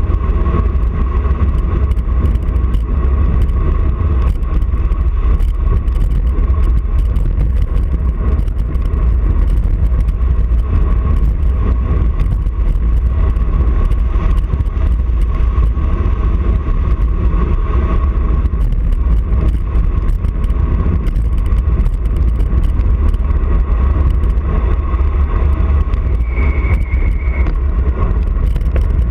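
Wind rushing over an action camera's microphone on a fast road-bike descent: a steady, heavy low rumble, with a brief high squeal near the end.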